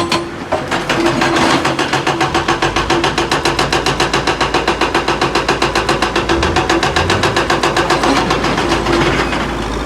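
Hydraulic rock breaker on a Tata Hitachi EX 210 LC excavator hammering stone in rapid, even blows, about eight a second, over the excavator's running engine. The blows weaken near the end.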